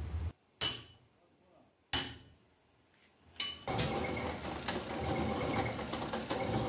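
Sharp metallic clanks, each ringing briefly, about half a second, two seconds and three and a half seconds in. Then a lathe starts running with a boring bar in the bore of a welded JCB bucket boss, a steady mechanical run with a faint whine.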